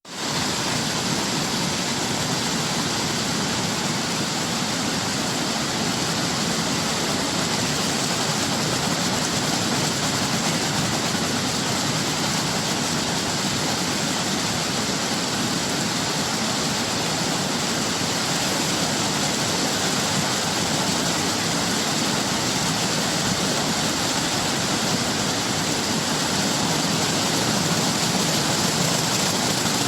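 Waterfall pouring: a steady, even roar of falling water with no breaks or changes.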